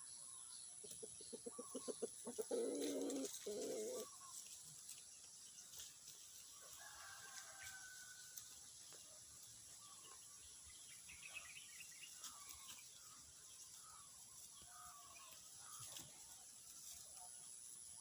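Brahma chicken clucking: a quick run of low clucks that builds into a louder, drawn-out call between about one and four seconds in, then scattered softer short calls.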